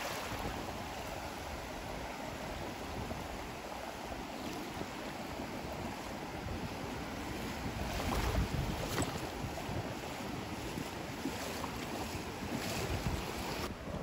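Small waves washing up on a sandy beach, with wind gusting over the microphone.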